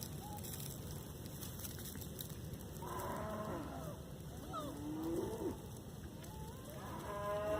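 Goats bleating: three calls, about three seconds in, about five seconds in and a stronger one near the end.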